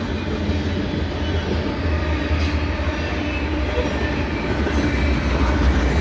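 Loaded three-bay covered hopper cars of a potash unit train rolling past at speed: a steady, heavy low rumble of steel wheels on rail.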